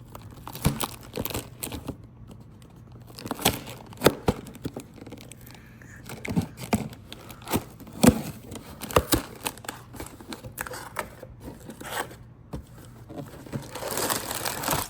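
A cardboard Lego set box being torn open and unpacked: tearing cardboard and crinkling plastic parts bags, with many sharp clicks and knocks and a longer rustle near the end.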